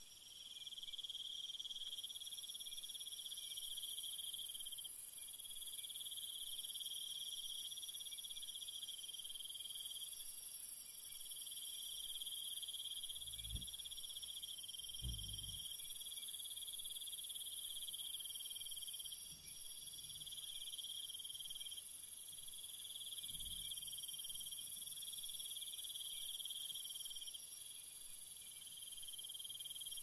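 Jungle ambience: a steady, high-pitched chorus of insects chirring in overlapping layers that swell and drop away every few seconds. A few soft low thumps come near the middle.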